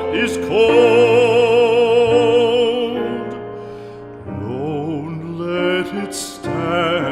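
Background music: a classical, operatic-style singer holding long notes with wide vibrato over an accompaniment, dying away about three seconds in before the accompaniment and softer voice go on.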